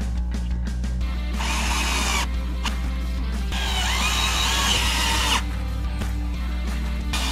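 18-volt cordless drill running in two bursts against the mounting cradle: a short one about a second and a half in, then a longer one of about two seconds, with another brief burst near the end. Background music plays underneath.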